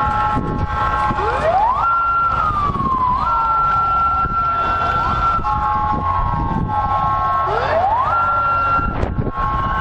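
Police siren wailing: the pitch sweeps up quickly, holds high, then slides slowly down, twice, with steady multi-tone blaring in between, over low background street noise.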